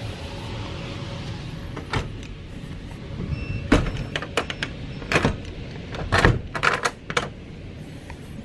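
A run of sharp knocks and clicks, a house door being handled and shut, over a steady rushing noise of storm wind.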